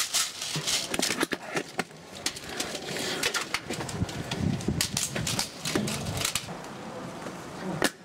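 Irregular rapid clicks and sharp plastic snaps, thick in the first couple of seconds and scattered after, over a low background rumble.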